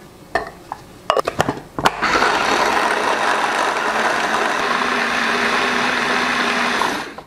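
A few knocks as the glass bowl is loaded and the top is fitted. Then an electric mini food chopper runs steadily for about five seconds, its blade grinding chunks of plant-based sausage into crumbs, and stops shortly before the end.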